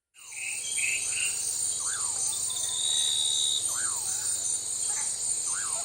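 Rainforest ambience: a steady, high-pitched chorus of insects, with a bird repeating a short whistled call that rises and falls about every two seconds. A few brief chirps come in the first second.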